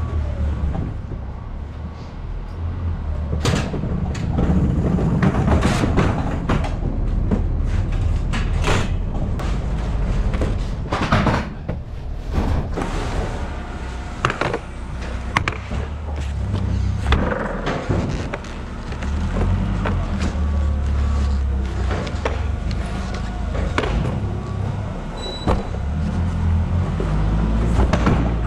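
Background music with a steady bass line, over scattered knocks and bangs from boxed fridges being loaded into a box truck.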